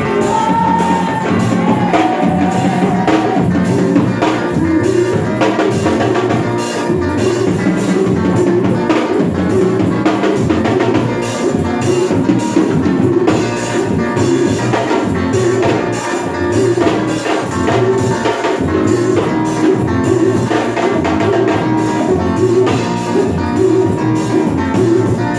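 Band music with a drum kit keeping a steady driving beat under sustained bass and keyboard-like notes; no clear lead vocal.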